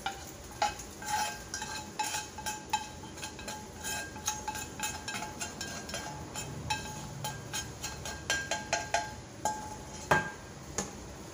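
A spatula scraping and knocking against a nonstick frying pan and the pan's rim tapping on a pressure cooker's inner pot, as sofrito is scraped out of the pan: a quick irregular run of clicks and scrapes, some knocks leaving a short ringing tone.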